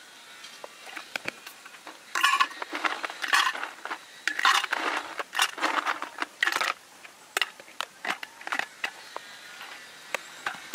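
Ice cubes clattering and clinking into an insulated pitcher in a run of rattling bursts, then a few scattered clicks.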